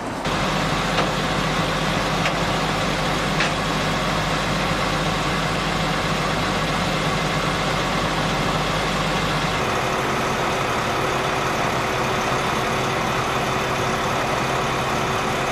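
Truck engine idling steadily, its low tone changing abruptly about ten seconds in.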